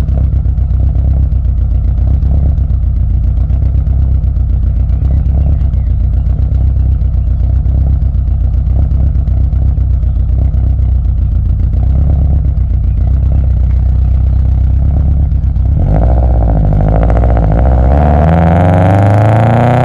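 Exhaust of a Subaru Impreza WRX's tuned EJ205 turbocharged flat-four, about 400 hp, idling steadily, then revved from about three-quarters of the way in: the pitch rises and falls, then climbs sharply near the end.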